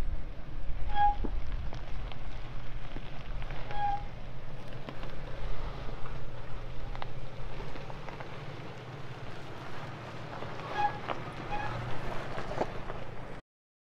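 Nissan Xterra's 4.0-litre V6 running at a slow crawl as the truck climbs over a rock step, with tyres crunching and popping over rocks and gravel and wind on the microphone. A few short high squeaks come about a second in, around four seconds, and twice near the end, and the sound cuts off suddenly just before the end.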